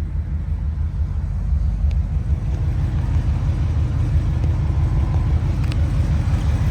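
A 350 crate V8 in a Jeep CJ-5 idling with a steady low rumble, a little louder about a second and a half in.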